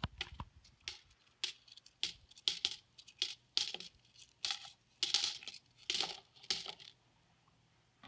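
Copper pennies dropped by hand into a floating aluminium-foil boat, clinking onto the growing pile of coins in a quick, uneven string of clicks, roughly two a second, stopping about seven seconds in.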